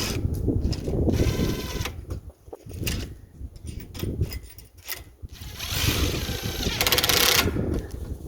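A cordless power tool whirring in two short bursts, about a second in and again near the end, as bolts are driven on the feeder frame, over a steady low rumble.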